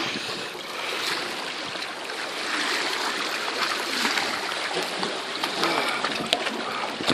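Water sloshing and trickling among shoreline rocks, steady throughout, with clothing rustle and a few light knocks from a phone carried close against the body, the last ones near the end.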